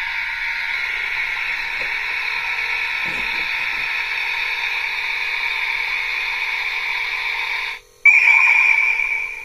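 DX Kamen Rider No. 2 Typhoon transformation-belt toy playing its electronic sound effect through its small built-in speaker after its button is pressed. It makes a steady rushing whoosh, which cuts off about eight seconds in, followed by a brief louder, higher-pitched burst.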